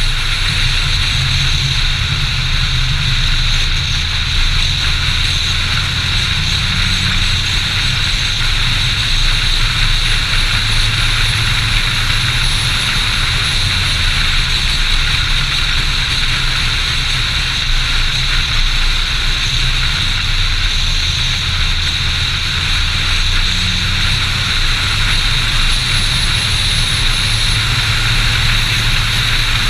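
A Volvo sedan driving at steady speed: a low engine hum with tyre and wind noise, over a constant high hiss.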